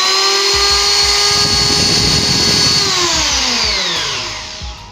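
Kyuho K282 electric hand planer running free at full speed with a steady high whine, then switched off about three seconds in, its pitch falling as it winds down.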